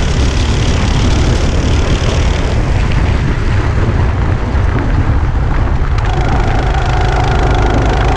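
Go-kart engine running at speed, heard through heavy wind rumble on the onboard microphone; a steadier engine note shows through from about six seconds in.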